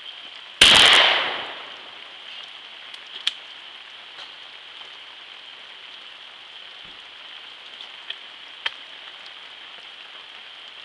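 A 20-gauge shotgun firing a single shot at a clay target, a sharp blast that dies away over about a second. A few faint clicks follow, over a steady background hiss.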